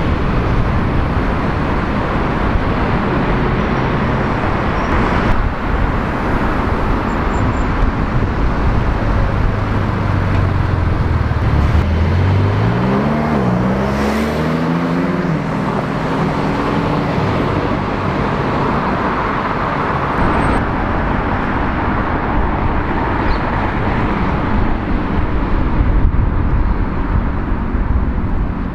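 Steady street traffic noise with cars driving past. About halfway through, a sports car's engine accelerates hard, its pitch climbing and dropping back at each upshift.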